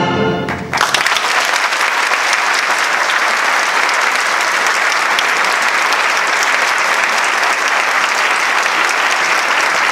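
The final chord of an orchestra and opera singers cuts off, and under a second in an audience breaks into applause that goes on steadily.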